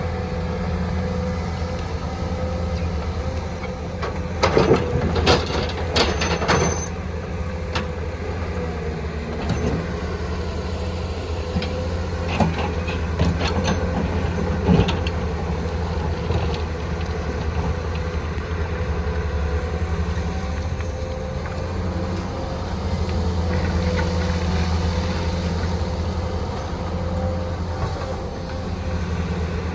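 Excavator diesel engine running steadily with a constant whine, and several sharp metallic knocks about five to seven seconds in and again around thirteen to fifteen seconds in.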